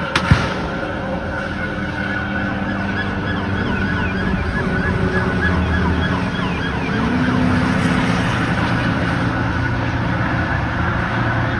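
Police car sirens sounding in a fast, repeating rise-and-fall yelp over steady highway traffic noise as the pursuit approaches. A single sharp knock comes a fraction of a second in.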